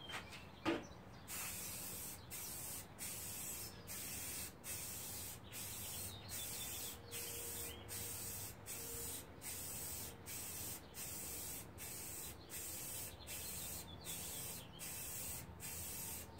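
Aerosol can of spray primer hissing in short spurts broken by brief pauses, about three every two seconds, as the coat goes on in passes. A short knock comes just before the spraying starts.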